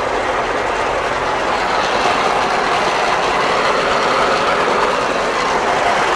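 Fortschritt E-303 self-propelled mower running while mowing, heard from inside its cab: a loud, steady mechanical din from the engine and cutting machinery.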